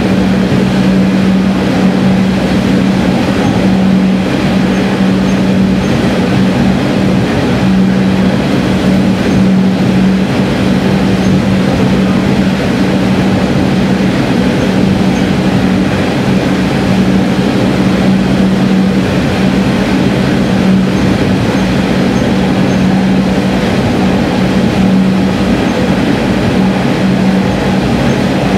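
Diesel railcar running at speed, heard from inside the car: a loud, steady drone with one strong hum and an even rumble of wheels on rail, with no let-up. The train is in a tunnel, which keeps the noise loud and close.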